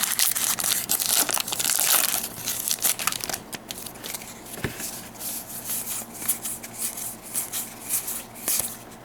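A Magic: The Gathering booster pack's foil wrapper being torn open and crinkled, followed by a run of short ticks and rustles as the cards inside are handled.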